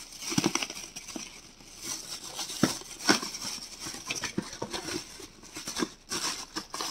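Parcel packaging being handled and opened by hand: irregular rustling and crinkling with scattered clicks, and two sharper taps about two and a half and three seconds in.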